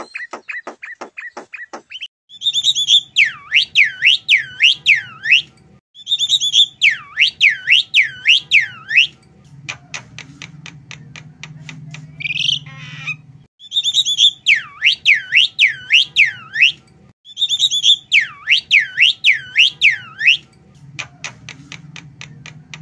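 Javan myna singing: four repeated phrases, each a high note followed by a quick run of swooping whistles, with rapid clicking and short harsh rasps between the phrases.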